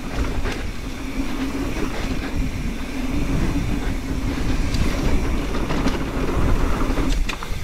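Mountain bike rolling fast down a dirt trail: tyre rumble and the bike rattling over bumps, under a steady buzz, with a few sharp knocks near the end.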